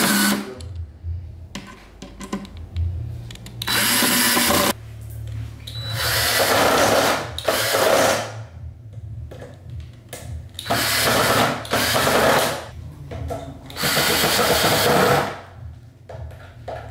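Cordless drill driving screws into a flat-pack drawer's metal slide rails, in about five short runs of one to two seconds each with pauses between.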